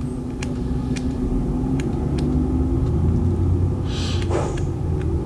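A steady low rumble with scattered faint clicks, and a brief hiss about four seconds in.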